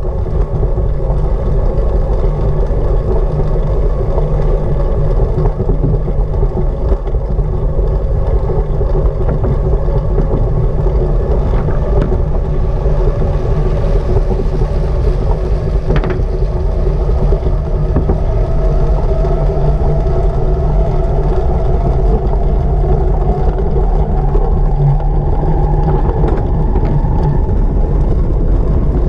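Wind rushing over a bike-mounted action camera's microphone, with a steady hum from a track bike's tyres and fixed-gear drivetrain running on the wooden velodrome boards. The hum rises a little in pitch in the second half as the bike speeds up.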